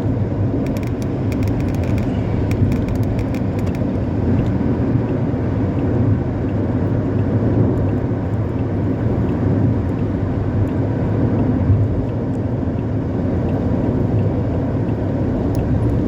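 Intercity bus with a modified 'ngorok' exhaust, a deep growling drone, running steadily at highway speed over engine and road rumble.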